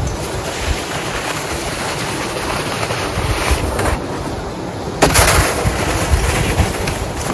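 Wind rumbling on the microphone, with a plastic snow dump being pushed through snow; a louder scraping rush comes about five seconds in.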